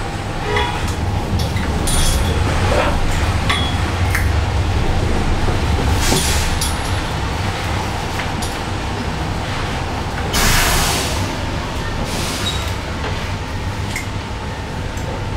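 Inside a trolleybus moving slowly in traffic: a steady low rumble and hum with small rattles and clinks. Two short hisses cut in, one about six seconds in and a longer one at about ten and a half seconds.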